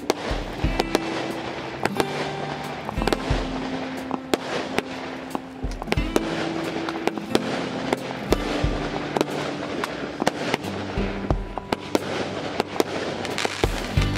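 Multi-shot consumer firework cake (the Tkb042 "Novator", 42 mixed-calibre shots) firing: a rapid, irregular run of sharp bangs and crackling bursts, several a second. Music plays underneath.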